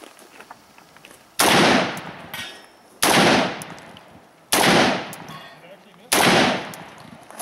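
Four rifle shots from an AR-15-style carbine, fired slowly and evenly about a second and a half apart, each followed by a decaying echo.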